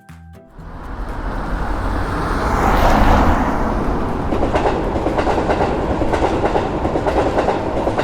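Train passing: a rumble that swells over the first three seconds, then runs on with a fast clatter of wheels over the rails.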